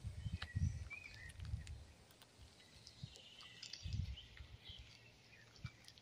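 Small songbirds chirping and calling in woodland, with a longer trill around the middle. Irregular low rumbling bumps on the microphone are the loudest sound, strongest at the start and again about four seconds in.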